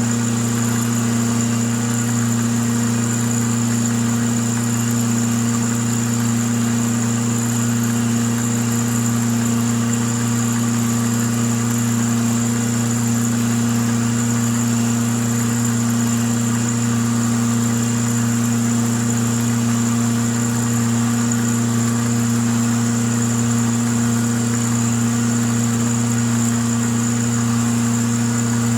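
Milling machine running steadily: a constant motor hum with a thin high whine above it.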